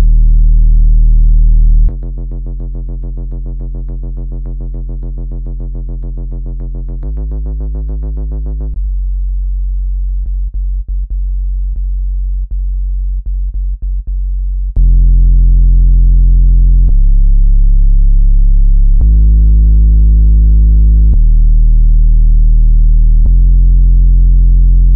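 Synthesized low-pitched tones for ejecting water from a laptop speaker, played loud so the speaker vibrates and pushes the water out. A deep hum drops about 2 s in to a quieter pulsing buzz, then to a lower tone cut by brief dropouts, and at about 15 s the loud deep hum returns, switching between two pitches every couple of seconds.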